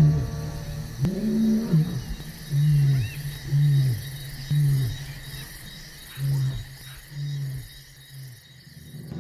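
A lion roaring: one long, deep moaning call, then a series of about seven short grunts about a second apart, growing fainter toward the end.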